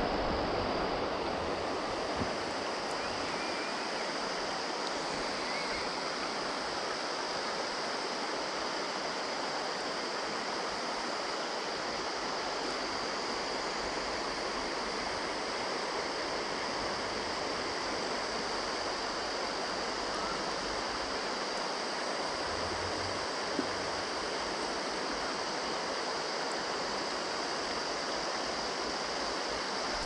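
River water flowing, a steady even noise with no change.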